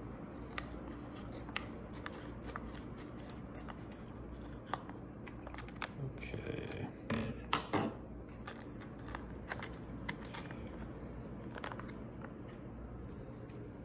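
Scissors snipping through a plastic fish-shipping bag, in a scatter of sharp cuts and clicks with the plastic crinkling. The cutting is busiest a little past the middle.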